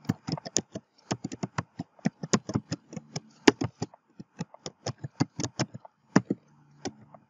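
Computer keyboard typing: a quick, irregular run of key clicks, several a second, with a couple of short pauses.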